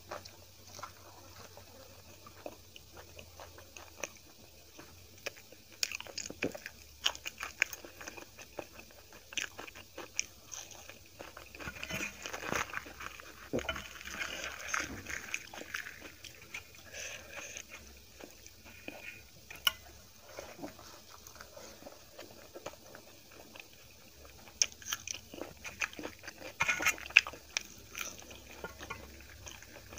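Eating sounds: chewing and biting food eaten by hand, with crisp crackling as a fried poori is torn apart, loudest in clusters about halfway through and near the end.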